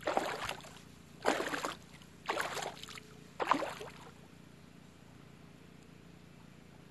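Footsteps wading through shallow water over a sandy bottom: four splashes about a second apart, then only a faint steady hiss.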